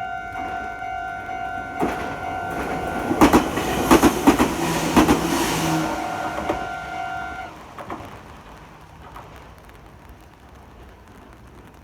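Level crossing warning bell ringing steadily while a Meitetsu train runs through, its wheels clacking over the rail joints. The bell cuts off about seven and a half seconds in, once the train has cleared, and the train sound fades away.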